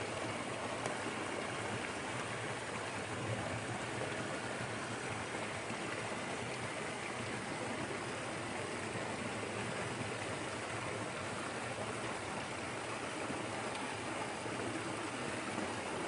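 Small creek waterfall pouring over a fallen log and splashing into a shallow pool below: a steady, unbroken rush of falling water.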